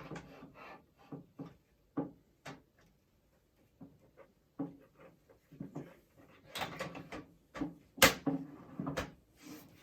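Front panel of a Thermaltake Level 20 VT PC case being handled and fitted back onto the chassis: a string of separate knocks and clicks, sparse at first and busier in the second half, the loudest about two seconds before the end.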